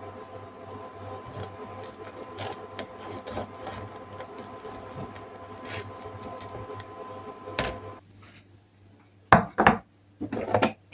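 A kitchen appliance runs with a steady electrical hum and light clicks, then switches off abruptly about eight seconds in. A few sharp knocks and clatters of kitchenware follow near the end.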